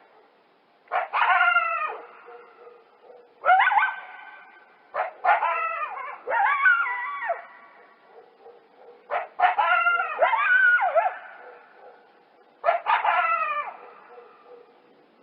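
A dog-like animal giving a series of short yelping calls, each starting sharply and falling in pitch, spaced a second or two apart. A faint steady hum sits underneath.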